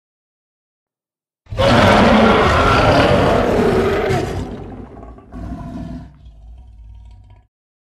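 King Caesar's monster roar sound effect: a loud roar starts about a second and a half in and fades, then a shorter second roar follows and trails off before cutting off suddenly near the end.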